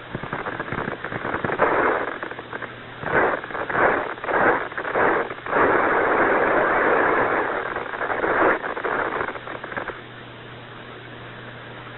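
Bursts of radio static on the Apollo 11 air-to-ground voice link, with no speech. It crackles at first, comes in several short bursts, runs as a steady hiss for about three seconds, then crackles again and cuts off about ten seconds in.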